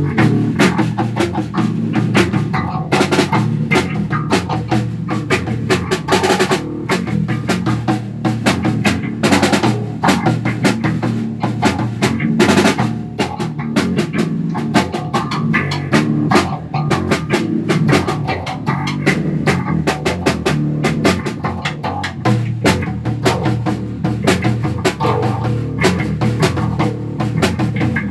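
A band jamming: a drum kit played with dense, fast strokes throughout, over an electric bass line.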